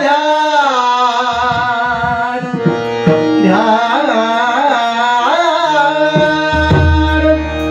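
Indian devotional bhajan music: a voice singing drawn-out wordless melodic phrases over steady held harmonium tones, with tabla and pakhawaj strokes, and deep pakhawaj bass strokes near the end.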